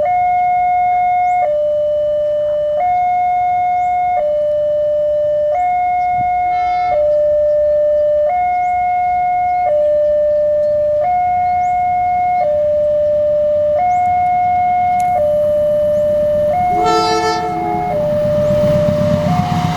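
Railway level-crossing warning siren sounding a two-tone high–low signal, each tone held about a second and a half. About 17 seconds in, a train horn blows briefly and the rumble of the approaching train grows loud.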